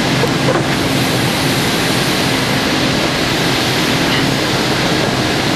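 Steady rushing noise of an electric air blower keeping an inflatable obstacle course up, with a low hum.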